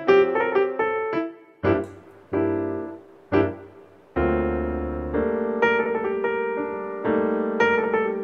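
Piano music: single notes and chords struck and left to ring, with short gaps between them at first, then fuller, steadier playing from about four seconds in.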